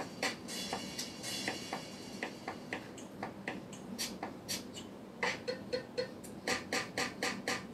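Background music with sharp, clicking percussion strokes that come more thickly near the end.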